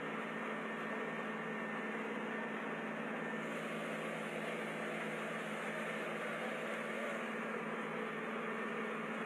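Tractor diesel engines running steadily under load as a tractor is towed out of deep mud, a constant drone with no revving.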